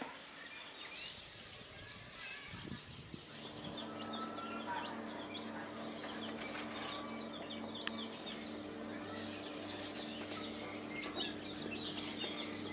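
A flock of young chicks peeping in many short, high cheeps, over a steady low hum that starts about three seconds in.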